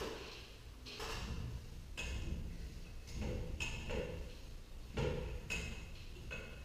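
Stepladder being repositioned and climbed, with hardware handled at the door: a string of irregular knocks and clanks, roughly one a second, each ringing briefly.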